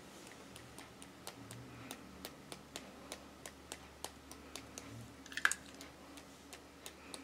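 Faint, irregular light clicks, two or three a second, as a mist spray bottle's pump is worked in short presses to spatter droplets of paint onto paper; one click about five and a half seconds in is louder.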